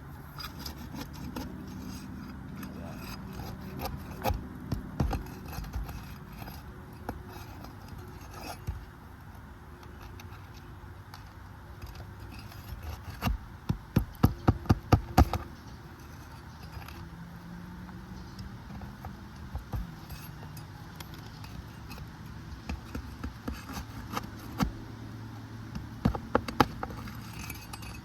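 Roofing nails being worked out from under asphalt shingles: scraping and light metal clinks of the tool, with a quick run of about eight sharp knocks around the middle and a few more near the end.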